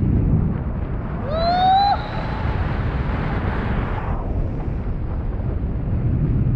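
Wind buffeting the microphone of a camera held out on a stick during a tandem paraglider flight: a steady low rumble, brightening into a hiss for a couple of seconds in the middle. About a second and a half in, a short pitched sound rises quickly.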